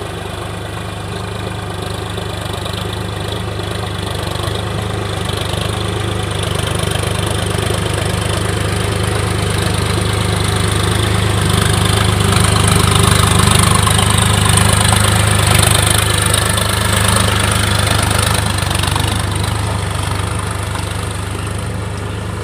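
Sonalika tractor's diesel engine running under load as it pulls a cultivator on cage wheels through a paddy field, growing louder as it comes close about halfway through, then easing slightly as it moves away.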